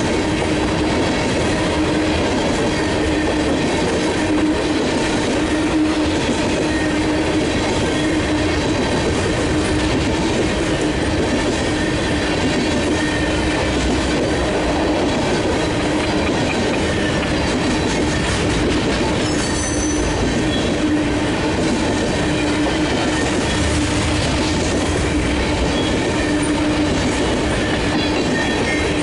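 BNSF covered grain hopper cars rolling past, a steady unbroken rumble and clatter of steel wheels on the rails.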